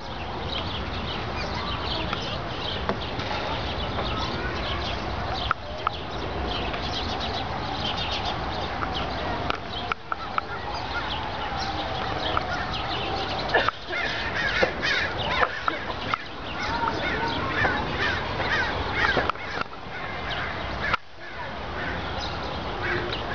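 Birds calling around a pond: many short chirps and calls over a steady background noise.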